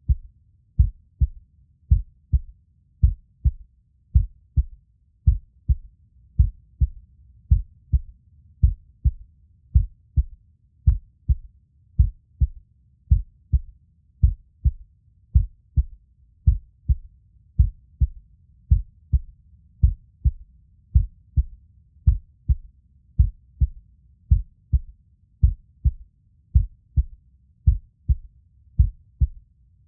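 Heartbeat sound: deep, low thumps repeating in a steady, even rhythm.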